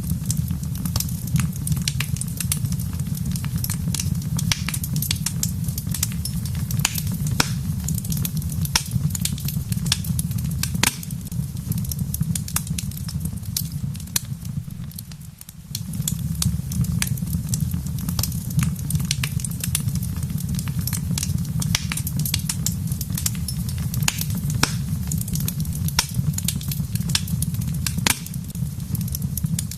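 Wood fire in a fireplace crackling, with a steady stream of sharp pops and snaps over a low, steady rumble. The rumble dips and drops out briefly about halfway through, then comes straight back.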